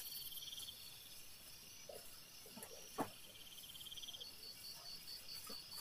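Crickets chirping at night: a steady high chirp several times a second, with a lower trill in two spells. There is one faint knock about three seconds in.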